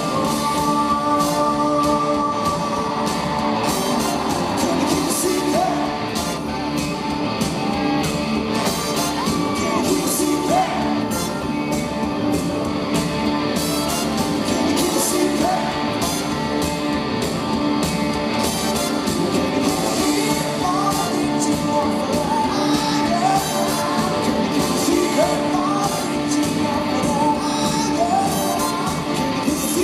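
Live rock band playing with a lead vocal, recorded from the audience in a large concert hall, with shouts from the crowd.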